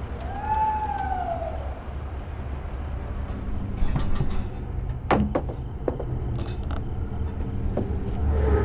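A vehicle's engine running low and steady, with a pitched mechanical whine that rises and falls in the first second or so and another rising whine near the end, plus a couple of sharp knocks.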